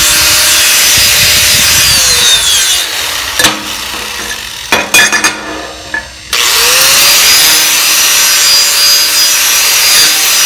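DeWalt angle grinder with a braided wire wheel brushing aluminum clean of oxide and dirt before TIG welding, a steady motor whine under a scrubbing hiss. It is switched off about two seconds in and winds down, a few sharp knocks of metal being handled follow, and a little past halfway it spins back up and brushes on steadily.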